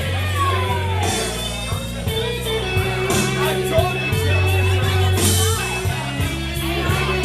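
Live blues band playing a slow blues, electric guitar over bass and drums, with cymbal crashes about a second in and again about five seconds in.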